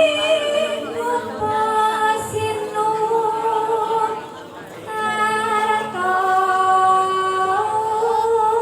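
A woman singing a slow, unaccompanied Javanese bowo (a sung tembang introduction) in long held, ornamented notes, with a short break about four seconds in. A fainter, lower held tone sounds underneath in places.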